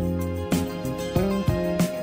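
Background music: gentle instrumental with plucked notes.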